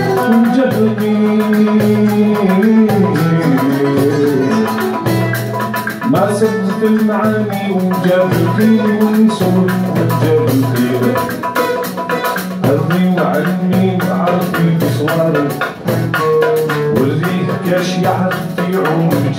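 Live instrumental passage: a plucked mandole playing quick melodic runs with an acoustic guitar, over steady hand percussion.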